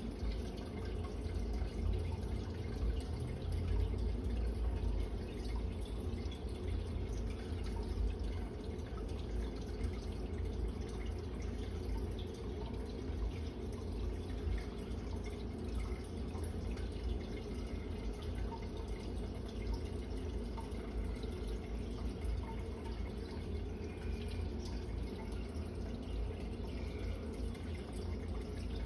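Steady trickle and drip of aquarium water circulating through a filter, over a continuous low hum.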